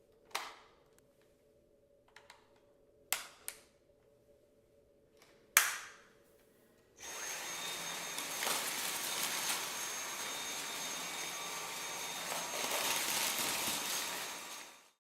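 A few sharp plastic clicks, then a Dyson V7 cordless vacuum switches on and runs steadily for about eight seconds, a rush of air with a thin high whine on top, before switching off.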